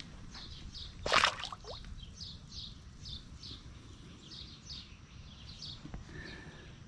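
A released bass splashes once as it kicks out of the hand into the water, about a second in. A small bird chirps throughout in short high notes, about two a second.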